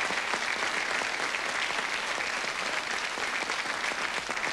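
Studio audience applauding, a steady continuous clapping.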